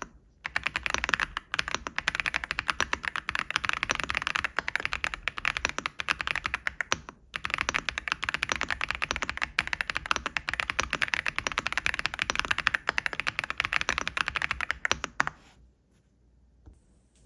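Fast typing on an AULA F87 Pro mechanical keyboard with Haimu Sea Salt tactile, non-clicky switches under MDA-profile keycaps: a dense run of clacky keystrokes. It breaks briefly about seven seconds in and stops about two seconds before the end.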